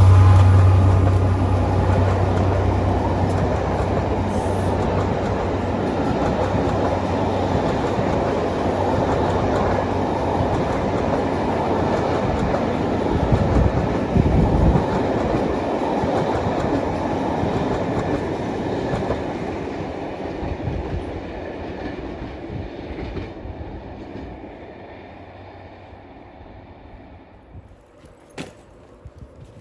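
A train passing on the line: a strong low hum at the start gives way to a steady rumble of the train going by, which fades away over the last several seconds as it recedes.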